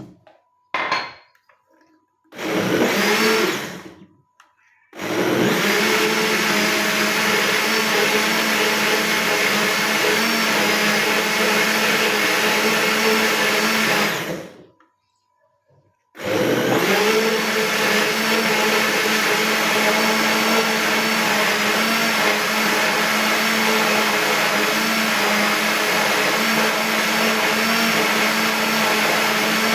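Old Ramtons countertop electric blender blending thick fruit, switched on and off: two short pulses, then a steady run of about nine seconds, a pause of about a second and a half, and another long steady run.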